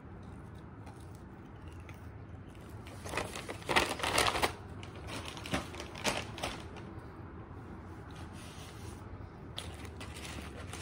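Paper fast-food packaging crinkling and rustling in short irregular bursts, the busiest stretch about three to four and a half seconds in, with a few single crackles later.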